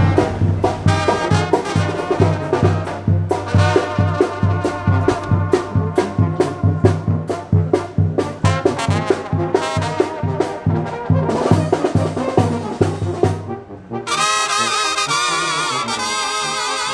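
Brass band music: a tuba keeps a steady oom-pah bass beat under trumpets and trombones. About 14 seconds in the music changes suddenly to held, wavering brass notes.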